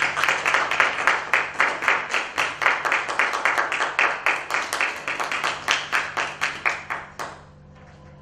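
Audience applauding, with distinct, fairly even claps at about four or five a second. The applause dies away about seven seconds in.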